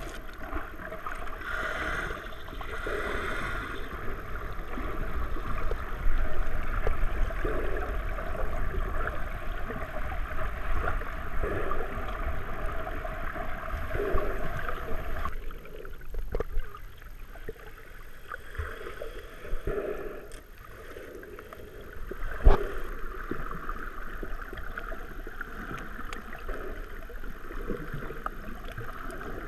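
Muffled water noise picked up by a camera in an underwater housing, water rushing and sloshing around it, with scattered small clicks. It drops quieter for a while past the middle, and a single sharp knock against the housing, the loudest sound, comes about three-quarters of the way through.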